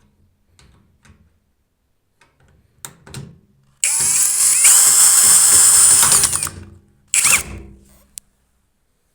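Cordless screwdriver driving screws in bursts: a brief one about three seconds in, a run of nearly three seconds from about four seconds in with the motor speed wavering, and another short burst near the end.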